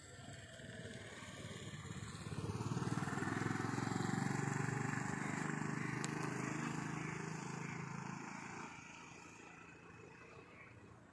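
A motor scooter passing close by: its small engine grows louder over a couple of seconds, stays loud for a few seconds, then fades as it rides away.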